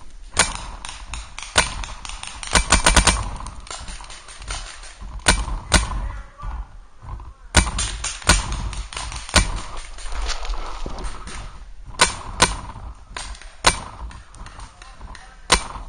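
Paintball markers firing: sharp single shots spaced a second or so apart, with a quick string of about five shots about three seconds in.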